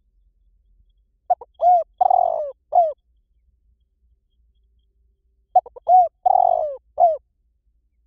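Spotted dove cooing: two phrases about four seconds apart, each a run of four coos, the third coo held longest.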